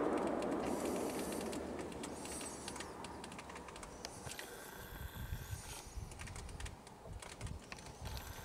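Echo of a hunting rifle shot rolling away through the forest and dying out over the first two or three seconds, followed by faint, irregular crackling and rustling.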